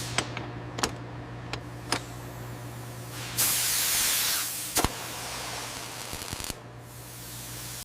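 A few sharp clicks, then a hiss of spray lasting about a second midway, followed by one more click, all over a steady low hum.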